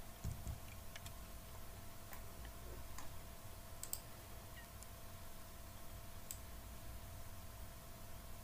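A few faint, scattered clicks of a computer mouse and keyboard, about half a dozen over several seconds, over a low steady hum.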